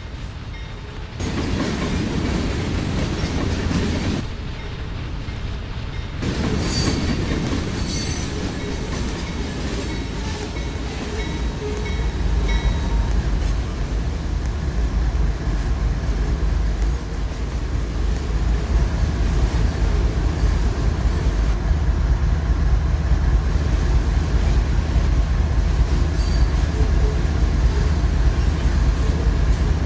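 Train rolling along the rails: a low rumble that builds and grows louder through the second half, with high steel wheel squeal in the first half.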